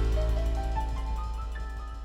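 Background music fading out: a held low chord with a short run of higher notes stepping upward, dying away.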